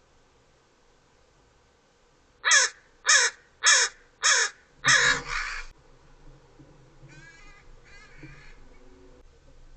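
American crow giving five loud caws in quick succession, followed about two seconds later by two fainter calls.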